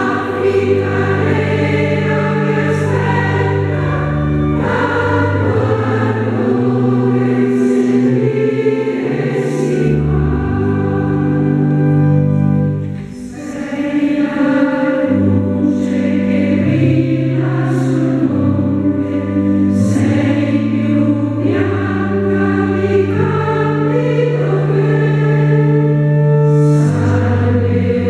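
A choir of nuns, women's voices, sings an Italian hymn in sustained phrases over a low held bass accompaniment. There is a short lull between phrases about halfway through.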